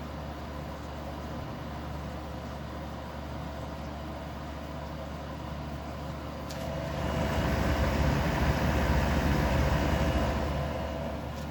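1974 Amana dehumidifier running with a steady hum from its Tecumseh AE compressor and fan. A louder rush of air swells from about six seconds in and eases off near the end.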